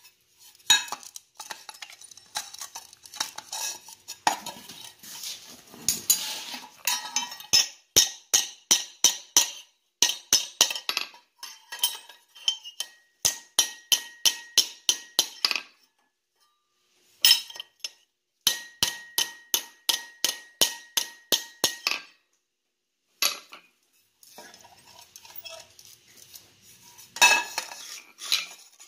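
Hammer blows on a hand-forged skillet's handle tab on the anvil as it is bent back: lighter irregular clinks at first, then runs of sharp metallic strikes about three a second, some ringing.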